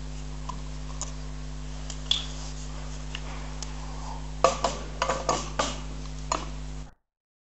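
Vertically detachable tow bar for a VW Touareg: light clicks as the plastic protective cap comes off the receiver socket, then, about four and a half seconds in, a cluster of sharp metal clicks and clunks as the coupling ball neck is pushed into the socket and locks. A steady low hum runs underneath, and the sound cuts off suddenly near the end.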